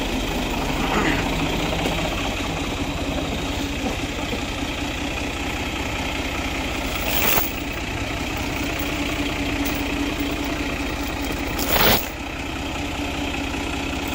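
Tractor diesel engine idling steadily, with two brief loud noises about seven and twelve seconds in.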